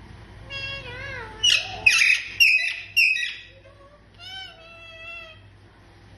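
Indian ringneck parakeet giving about four loud, harsh screeching calls near the middle, with quieter, bending pitched calls before and after.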